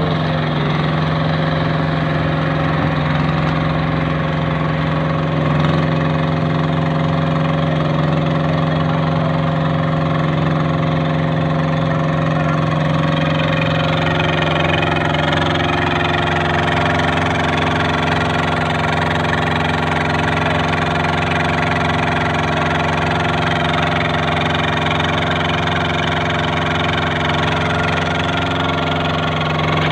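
Engine of a curb-stone making machine running steadily at constant speed, a continuous even hum.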